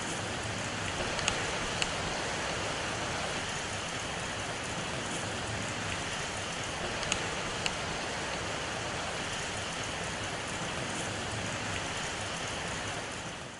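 Steady rushing noise with two pairs of short sharp clicks, each pair about half a second apart: one pair about a second in, the other about halfway through.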